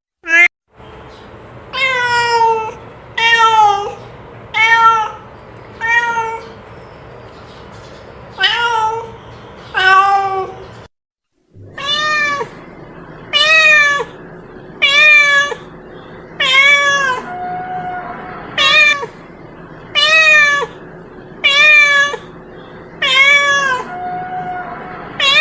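A domestic cat meowing over and over, one meow about every second and a half, each call dropping in pitch at its end.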